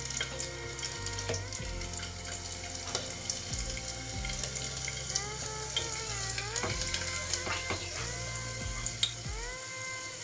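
Garlic cloves sizzling in hot oil in a pressure cooker, a steady hiss with scattered sharp pops, under quiet background music.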